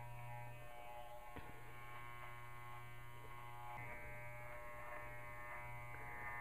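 Electric dog-grooming clippers running with a steady buzz as they shave a dog's coat, the tone shifting slightly now and then as the blade works through the fur.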